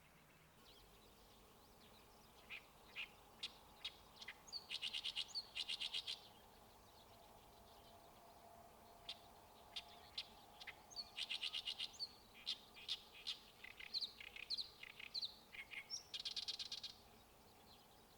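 A songbird singing: sharp single chirps mixed with fast chattering runs of about ten notes a second, in phrases a few seconds long separated by pauses.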